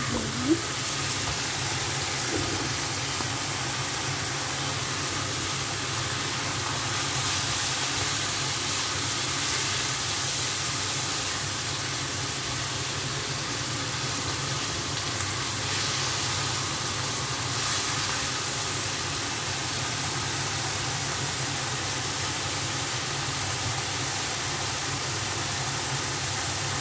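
Kailan (Chinese broccoli) sizzling steadily in a hot frying pan as it stir-fries, an even hiss with a low steady hum beneath.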